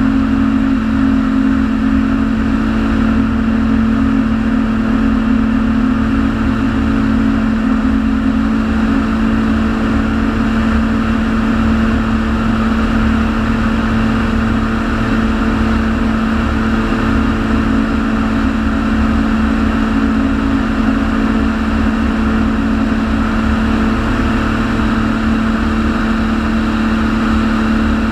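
Atol 650 light-sport amphibian's engine droning steadily in flight, heard from a wing-mounted camera, with a steady rush of airflow over it.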